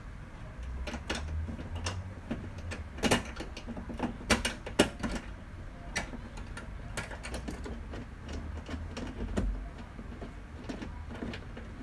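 Irregular clicks and ticks of small screws and plastic screw-type clips being turned out and handled by hand in a car's front wheel-arch liner, with a few louder clicks about three to five seconds in, over a low rumble.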